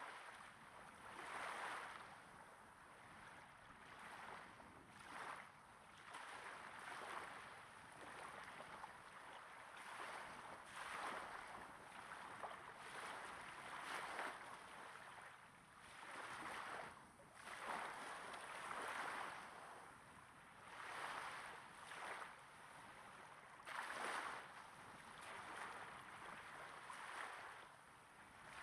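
Small waves breaking gently on a sandy beach, heard close up: soft, irregular washes of water swelling and falling away every second or two.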